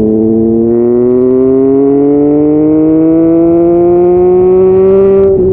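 Triumph Speed Triple's three-cylinder engine accelerating hard through one gear, its pitch rising steadily, then dropping suddenly at an upshift near the end.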